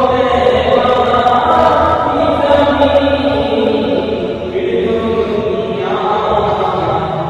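Devotional Islamic naat playing as background music: a chorus of voices holding long, sustained notes in harmony.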